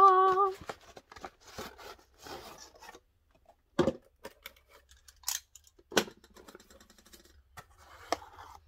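A cardboard shipping box being opened by hand: packing tape tearing, flaps and paper rustling and scraping, with a couple of sharp knocks about 4 and 6 seconds in. A brief hummed or sung note at the very start.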